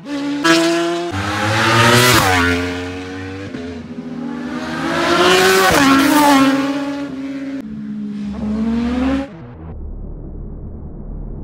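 Superbike racing motorcycles passing one after another at full race speed, about three times: each engine note climbs in pitch as the bike approaches and drops sharply as it goes by. The last pass breaks off suddenly about nine seconds in.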